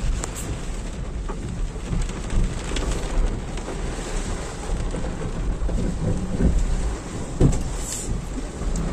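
Heavy rain beating on the roof and windshield of a moving car, heard from inside the cabin, over a low steady rumble. A louder thump stands out about seven and a half seconds in.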